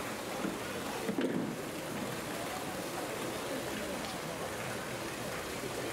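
Steady rush of water in a polar bear's pool, with a soft splash about a second in.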